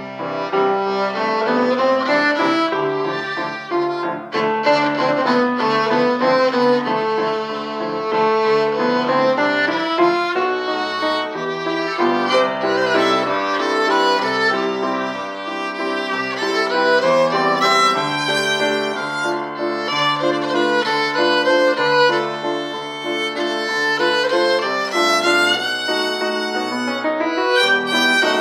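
Violin playing a classical dance piece, with grand piano accompaniment underneath.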